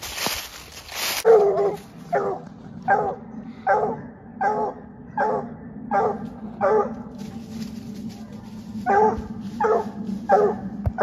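A coonhound barks at a tree in a steady run of single barks about every three-quarters of a second, with a short pause near two-thirds of the way through. This is the hound's bark at the tree when it has treed a raccoon. A loud rustle comes before the barking, in the first second.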